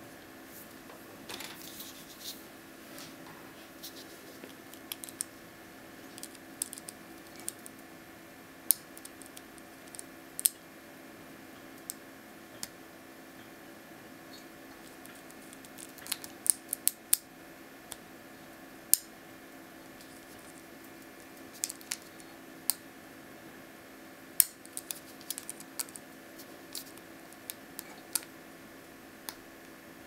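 Lock pick and tension wrench working in the keyway of a Master Excell M5 four-pin padlock: irregular small metallic clicks, ticks and scrapes as the pick rakes and sets the pins, a few of them sharper and louder.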